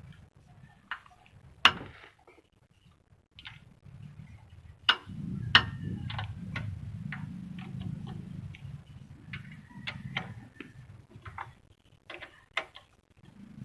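Scattered sharp clicks and knocks at irregular intervals, with a low rumble from about five to twelve seconds in.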